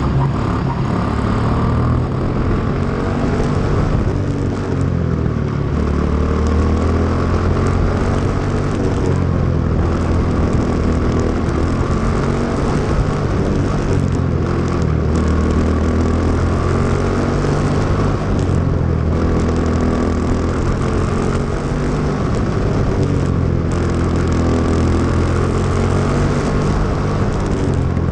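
Quarter midget's single-cylinder Briggs & Stratton Animal engine running at racing speed. Its pitch rises and falls continuously as the car is driven around the dirt oval.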